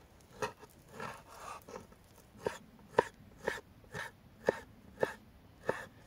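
A cleaver-style kitchen knife chopping bacon on a wooden cutting board: a steady run of sharp knocks, about two a second, as the blade cuts through the meat and strikes the board.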